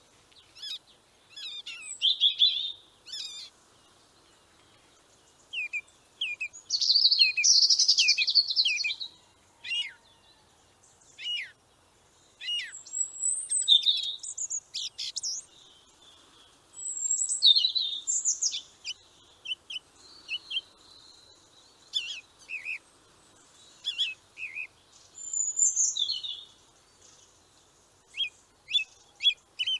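Songbirds chirping and singing: many short, high chirps and whistled phrases in irregular clusters, with brief pauses between them.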